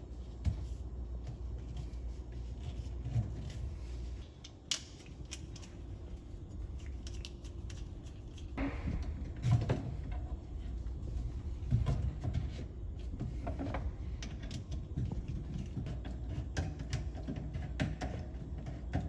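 Scattered light knocks, clicks and a brief scrape from drain fittings being handled and fitted inside a kitchen sink cabinet, over a steady low hum.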